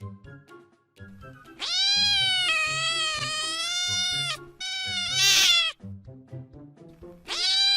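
Domestic cat meowing: one long drawn-out meow of nearly three seconds, then a shorter, harsher one, and another meow starting near the end, over background music.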